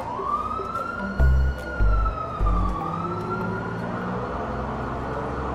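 Police siren wailing: one slow rise at the start, a long hold, then a fall about three seconds in. Deep bass notes from a music track play under it for the first three seconds.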